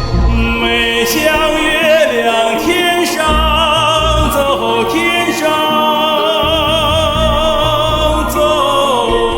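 A trained classical-style voice sings a Yunnan folk song, holding long notes with wide vibrato over a steady instrumental accompaniment.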